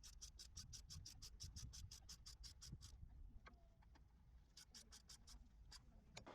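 Socket ratchet clicking in quick, even strokes, about seven clicks a second, while the 10mm brake caliper bolts are run back in. The clicks stop about three seconds in, then resume briefly, ending with a few single clicks.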